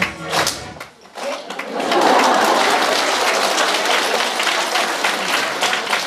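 Audience applauding, a dense steady clapping that sets in about a second and a half in, just after the last sung notes of a group song die away.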